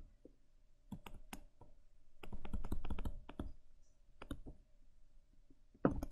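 Pen stylus tapping and scratching on a tablet screen during handwriting: scattered small clicks, a denser run about halfway through, and a louder cluster of taps near the end.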